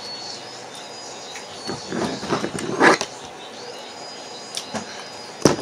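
Cooked crab shells and legs being handled: rustling and light knocks of shell, the loudest a couple of seconds in, and one sharp click near the end. A faint steady high whine sits underneath.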